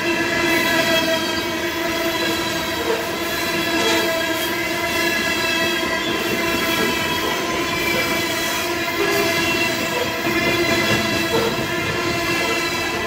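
Norfolk Southern freight train's covered hopper cars rolling past close by, a steady loud rumble of wheels on rail with a continuous high ringing squeal from the wheels and rails over it.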